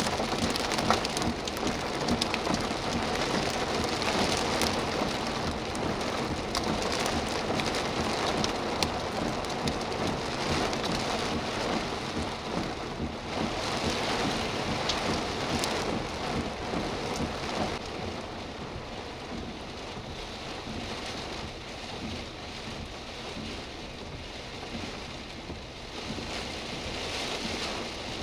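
Heavy wind-driven rain pouring down in a severe thunderstorm, easing a little after the middle.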